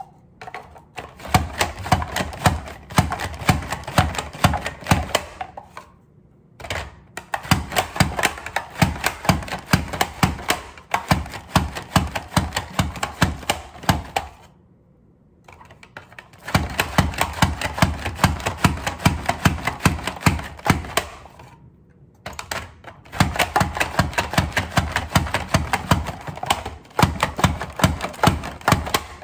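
Pampered Chef Rapid Prep Mandoline slicing zucchini and yellow squash: the food holder is pushed down over the blade in quick, rhythmic strokes, each a sharp click, in four runs with short pauses between them.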